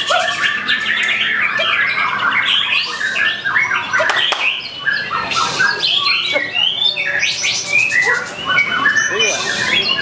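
White-rumped shamas singing in a songbird contest: a loud, continuous stream of varied whistles, rising and falling sweeps, trills and harsh chattering notes, several birds overlapping.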